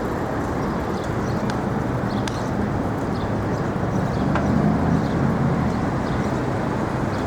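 Steady city street noise, mostly the rumble of traffic.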